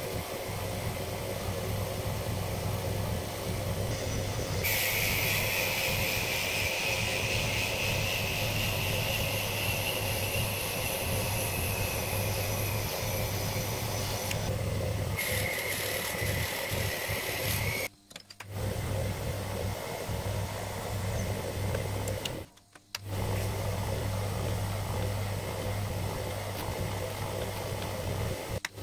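Small benchtop lathe running steadily with a low motor hum as its cutter turns down a small wooden rod. A higher whine comes in about five seconds in for some ten seconds and again briefly later. The sound drops out twice for a moment in the second half.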